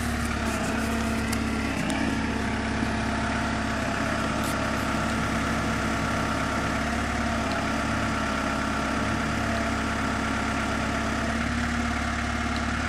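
An engine idling steadily: a constant low hum with a steady, higher whine over it.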